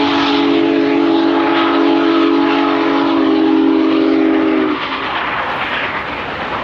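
Union Pacific Big Boy No. 4014 steam locomotive's chime whistle sounding one long, steady chord of several tones that stops about five seconds in, over the rumble of the train and highway traffic.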